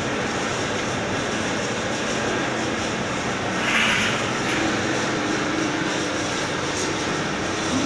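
Double cone powder blender running: its drive motor and rotating stainless-steel cone give a steady mechanical rumble, with a brief hiss about halfway through and a low steady hum coming in just after.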